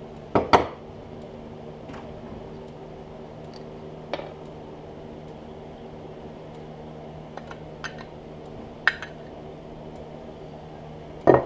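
Metal injection mold plates and fittings clinking and knocking as the mold is handled and opened, with scattered light clicks and two louder knocks, one about half a second in and one near the end. A steady hum runs underneath.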